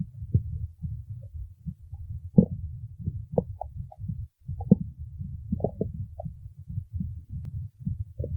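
A hungry stomach growling: a continuous low rumble broken by many short squeaky gurgles.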